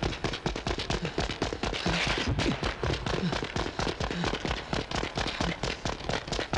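A dense, rapid run of sharp cracks and bangs, several a second without a break, in a film action scene's soundtrack.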